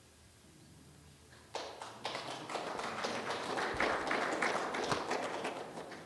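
Audience applauding, starting suddenly about a second and a half in and tapering off near the end.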